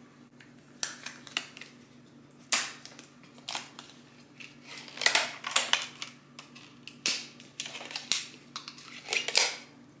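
Hands stretching a latex balloon over a small block: about a dozen irregular rubbing and snapping noises of the latex.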